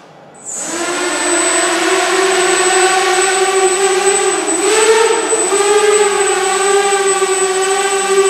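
Small quadcopter's electric motors and propellers spin up about half a second in, then hold a steady buzzing hum as it lifts off and flies, with a thin high whine above. The hum's pitch wavers briefly a little past the middle as the throttle adjusts.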